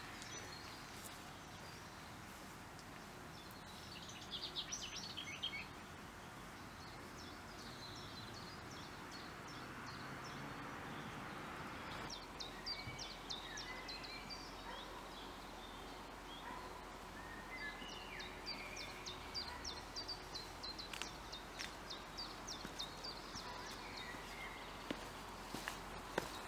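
Quiet outdoor ambience of small birds chirping and trilling in short bursts over a faint steady background hiss, with a few footsteps near the end.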